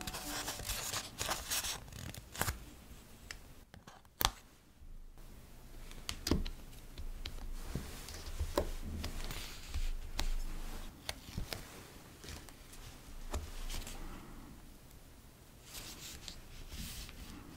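Crinkling and rustling of a clear plastic sticker sheet being handled, with scattered small sharp clicks and taps as stickers are picked off with tweezers and pressed onto a paper journal page.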